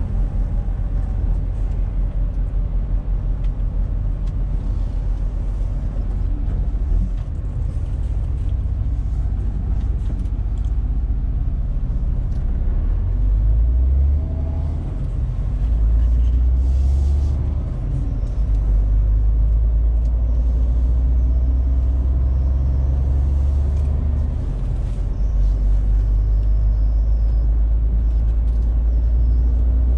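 MAN TGX 470 truck's straight-six diesel running under way, heard from inside the cab as a low, steady drone. Its level steps down and back up several times, as the truck slows for a roundabout about halfway through and pulls away again.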